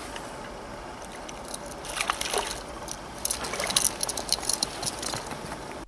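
Water splashing and sloshing in irregular bursts, typical of a hooked crucian carp thrashing at the surface. It begins about a second and a half in and breaks off suddenly at the very end.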